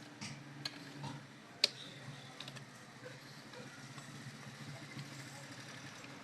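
A few light clicks and taps of small hard parts being handled, the sharpest about a second and a half in, over a low steady hum.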